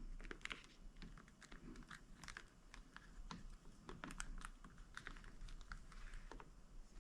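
Faint, irregular small clicks and taps as a rubber grip insert's tabs are pressed by hand into the hard grip shell.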